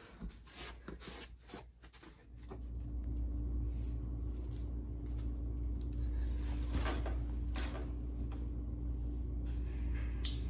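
A steady low hum sets in a couple of seconds in, under scattered knocks and rustles as a person moves about close by and sits down in a chair; a sharp click near the end.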